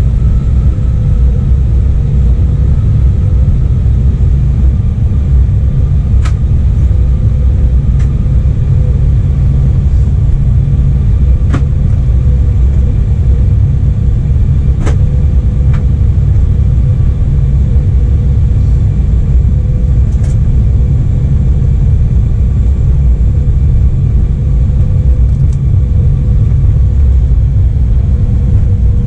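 Cabin noise inside an Embraer E175 regional jet on the ground: a steady, loud low rumble with a faint steady hum from its GE CF34 turbofans at low power, typical of taxiing. A few faint clicks sound through it.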